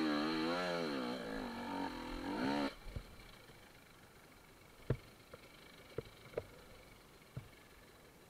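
Enduro motorcycle engine running with its revs wavering up and down, then cutting out suddenly a little under three seconds in. Afterwards a few short knocks or clicks.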